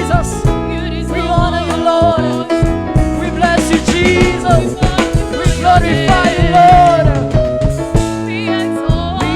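Church worship music: a singing voice over a band with drums and steady bass notes.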